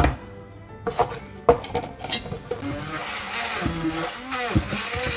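A few sharp clinks of utensils against a bowl, then a kitchen blender running from about halfway in, mixing the banana pancake batter; background music plays underneath.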